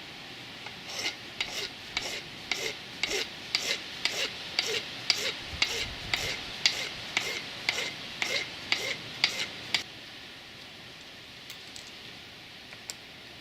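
Hand file rasping on a pit bike clutch lever, about twenty strokes at roughly two a second, stopping about ten seconds in. The filing takes material off where the cable rod seats, so the clutch cable can line up in its slot.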